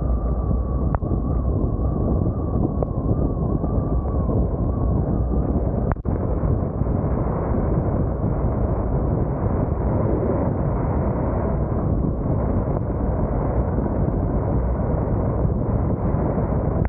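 Vehicle driving at speed on a wet highway: steady low road and tyre noise mixed with wind rushing past the microphone. A thin wavering whistle sounds over it for the first five seconds or so.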